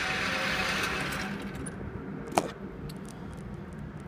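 Motorised target carrier on an indoor range running as it brings a paper target back up the lane, its hum easing off a little over a second in. A single sharp knock comes about two and a half seconds in.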